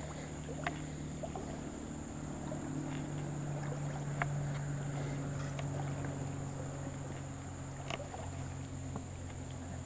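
Insects shrilling steadily in one high, thin, unbroken band, over a low steady hum and a few faint scattered clicks.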